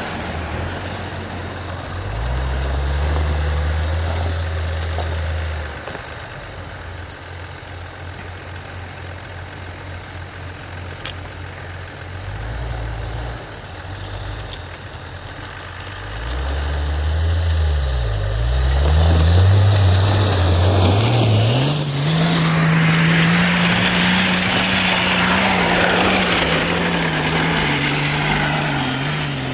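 Off-road 4x4 engines working in snow, the engine note repeatedly rising and falling as the vehicles rev. The last third is a long, hard-revving stretch with a broad hiss over the engine.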